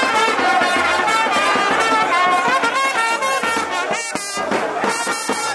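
Brass band playing a tune, its horns sounding held notes that move from one pitch to the next.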